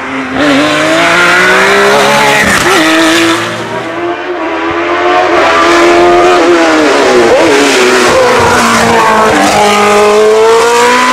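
Racing engines at full throttle, the pitch climbing and dropping with each gear change and lift. First a Porsche 911 GT3's flat-six through a bend, then, after a brief dip about four seconds in, a single-seater formula car accelerating.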